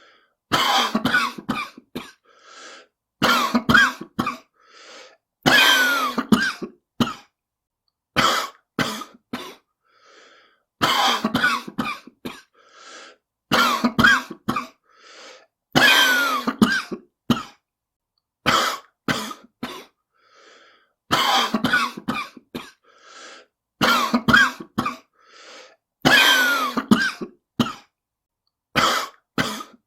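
A person's smoker's cough: repeated fits of several coughs, one fit about every two to three seconds, with fainter breaths between the fits.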